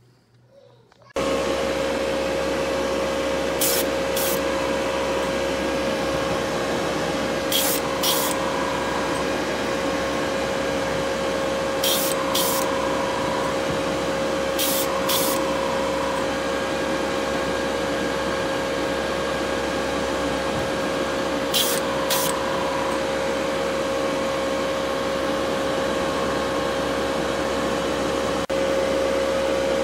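Hobby spray booth's exhaust fan running steadily with a constant hum, starting suddenly about a second in. Over it, short hisses of spray paint, mostly in pairs, come every few seconds as a small die-cast car body is painted.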